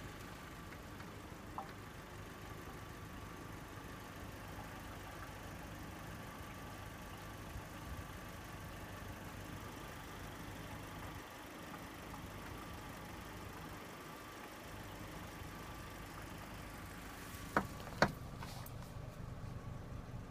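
Saturn S-series four-cylinder engine idling steadily, with two sharp knocks about half a second apart near the end. The owner suspects something loose rattling in the front exhaust pipe or catalytic converter.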